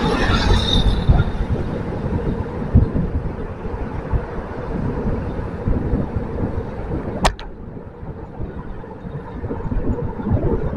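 Road traffic with motor scooters riding ahead, louder in the first second or two, under an uneven low rumble of wind on the bicycle-mounted microphone. A single sharp click about seven seconds in.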